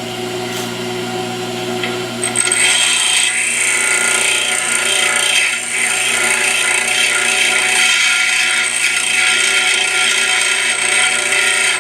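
Pedestal grinder running, and from about two seconds in its wheel grinding a high-speed steel lathe tool bit held by hand: a steady hissing grind with a high whine over the motor's hum, stopping suddenly at the end. The bit is being shaped to a 60-degree thread-cutting point.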